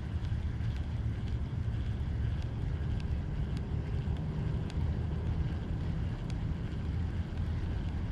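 Wind buffeting the microphone: a steady low rumble, with faint light ticks scattered through it.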